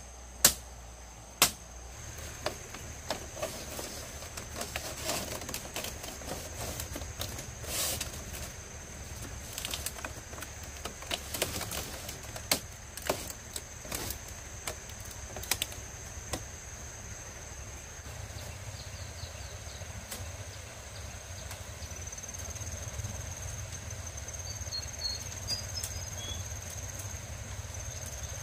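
Irregular sharp knocks and taps from work on bamboo, loudest in the first two seconds and thinning out after about halfway. Behind them, a steady high insect drone, and a few short bird chirps near the end.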